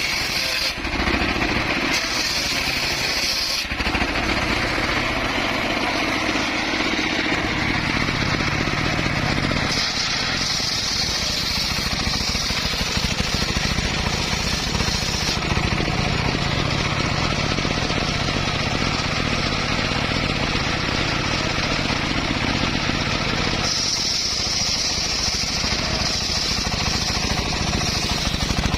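Circular saw running continuously while cutting wood, with a harsher, higher-pitched sawing noise during three cuts: a short one near the start, a longer one of about five seconds in the middle, and another near the end.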